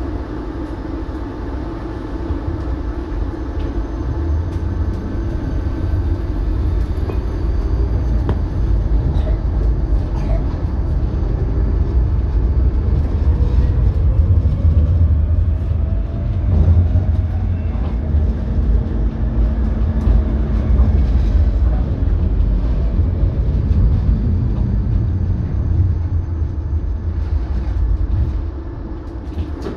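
Tram running along the track: a steady low rumble that builds over the first few seconds and eases near the end. Midway, the electric traction motor's whine rises and then falls in pitch.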